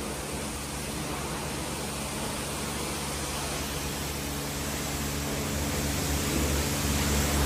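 Steady hissing spray over a low, steady machine hum, growing louder over the last few seconds.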